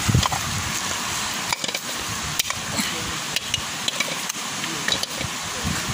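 A coconut being knocked against a stone to crack it open: several sharp, irregular knocks a second or so apart.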